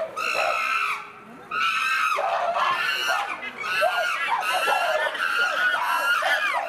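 Several chimpanzees screaming and calling at once, overlapping high-pitched cries that rise and fall, with a short lull about a second in.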